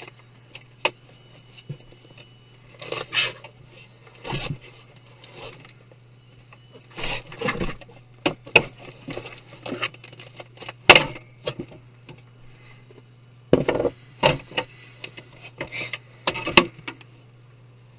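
Parts of a desktop computer being handled and taken apart: irregular clicks, taps and knocks of plastic and metal, with short scraping and rubbing sounds, over a steady low hum.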